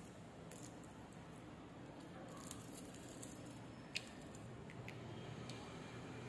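Faint handling noise from fingers holding a cicada: a few small clicks and rustles, with one sharper click about four seconds in, over a low steady hum. The cicada is not singing.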